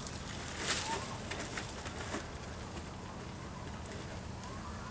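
Outdoor ambience: a few faint, short bird calls over a low steady background, with a brief rustle of handling a little under a second in.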